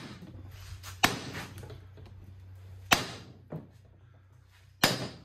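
Hammer striking a tensioned Pitman arm puller three times, about two seconds apart, each blow sharp with a brief metallic ring: blows meant to shock the tight Pitman arm off the steering box shaft.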